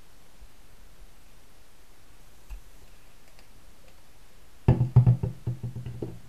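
Metal eyelet-setting pliers set down on the tabletop, clattering: a quick cluster of sharp knocks with a brief metallic ring that dies away within about a second and a half, near the end.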